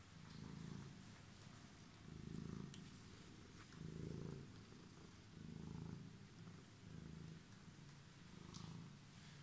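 Calico cat purring close to the microphone, in steady swells about every one and a half seconds as it breathes in and out.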